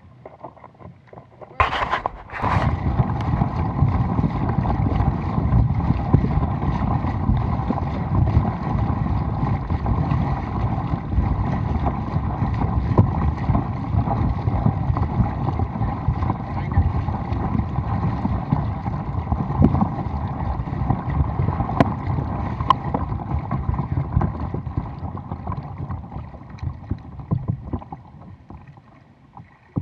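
Paddle strokes splashing and water rushing along the hull of an ORU Bay ST folding kayak under way, with wind buffeting the bow-mounted microphone. It starts suddenly about two seconds in and eases off near the end.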